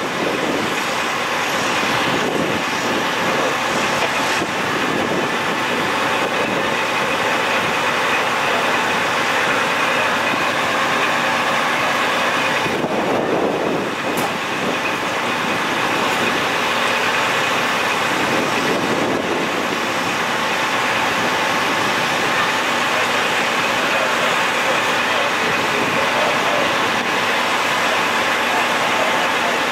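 Steady mechanical noise of idling heavy vehicles and equipment, a constant hum with a few faint steady tones and no clear events.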